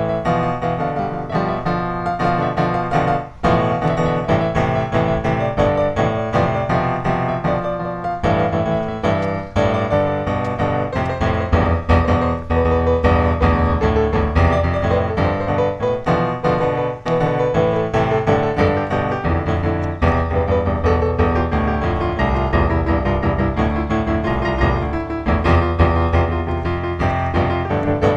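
Background piano music, a steady flow of notes without a strong beat.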